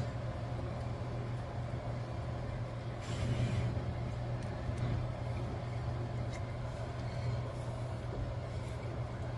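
Steady low mechanical hum of a running kitchen appliance, with a brief rustle about three seconds in and a few faint clicks.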